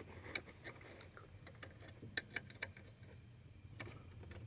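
Faint, scattered small clicks and taps of parts and hand tools being handled while an ignition switch is fitted under a truck's dash, with a quick cluster of clicks about two seconds in.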